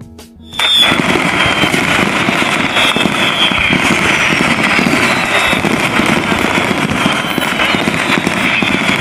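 Virtual fireworks gift sound effect from a live-streaming app: a loud, dense crackling of bursts that starts suddenly about half a second in, with a high whistle slowly falling in pitch over it.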